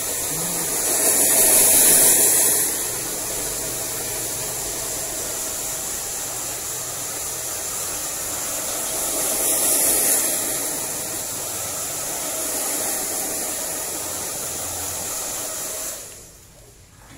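Handheld hair dryer blowing steadily as short hair is dried, swelling louder twice, then switched off near the end.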